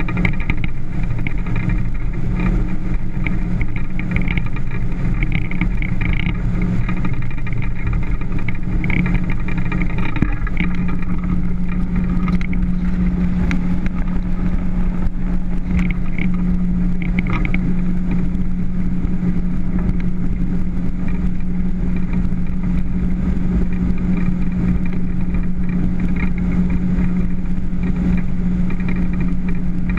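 Motorboat engine running at a steady cruising speed, a loud continuous drone whose tone settles and holds steady about ten seconds in.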